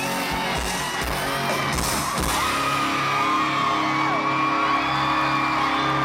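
Live rock band with electric guitars and drums: the drums hit steadily for about two seconds and stop, then the final chord is held and rings while the crowd whoops and screams over it.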